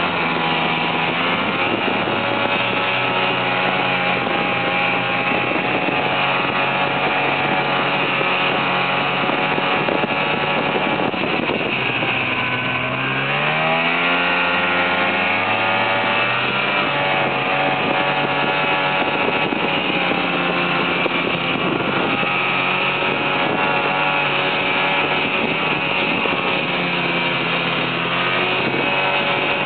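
Snowmobile engine running under way, heard from the rider's seat. About twelve seconds in, its note drops and then climbs back up over a few seconds as it slows and picks up speed again.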